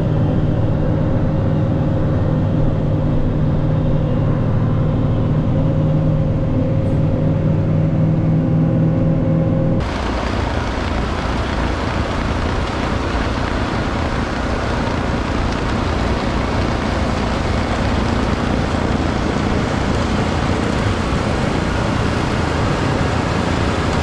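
Tractor engine running steadily under heavy load at PTO speed, driving an eight-foot Farm King snowblower through heavy, wet snow. It is heard first from inside the cab as a steady hum; about ten seconds in it changes abruptly to a broader, noisier rush of engine and blower heard from outside.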